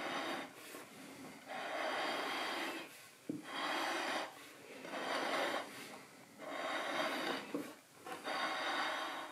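China plate scraping across a wooden countertop as it is turned by hand, in five rasping strokes of a second or two each with short pauses between.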